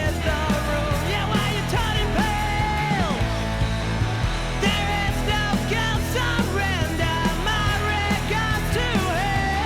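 Rock music with singing or a lead guitar over a steady bass and drum beat, cutting off right at the end.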